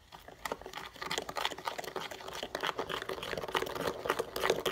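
Plastic spoon stirring a glittery slime mixture in a plastic tub: a quick, irregular run of small clicks and scrapes that gets busier about a second in.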